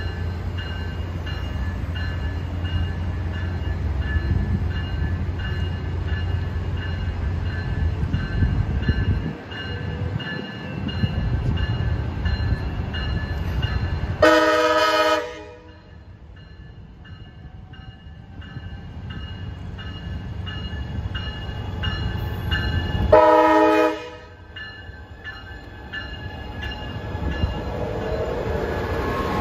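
Amtrak Pacific Surfliner train with a Siemens Charger diesel locomotive: the engine runs with a loud, steady rumble, and the horn sounds twice, two short blasts about nine seconds apart. The passenger cars then roll past close by with a lower rumble.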